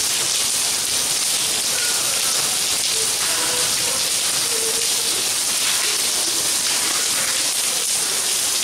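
Steady rain falling on paving and plants, an even hiss throughout.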